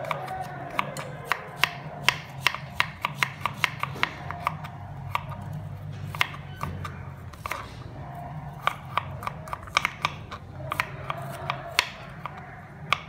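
Salad ingredients being cut: a rapid, uneven series of sharp clicks and taps over a steady low hum.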